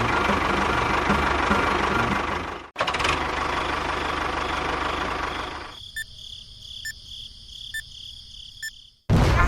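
A small engine running with a steady low knocking rhythm, broken off sharply about three seconds in and then fading out. After that comes a faint high steady tone with evenly spaced clicks, and a loud sound cuts in just before the end.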